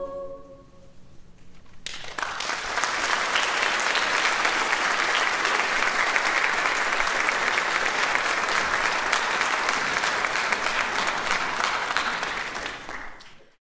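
The choir's last held chord dies away in the first second, then a concert audience bursts into applause about two seconds in and claps steadily until the sound cuts off abruptly near the end.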